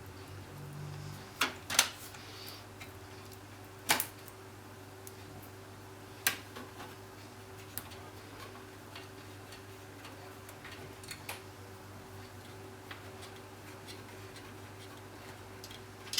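Sharp clicks and ticks of hard plastic and metal parts as a graphics card is unfastened and taken out of a PC case, over a faint steady hum. A few loud clicks come in the first six seconds, then only scattered fainter ticks.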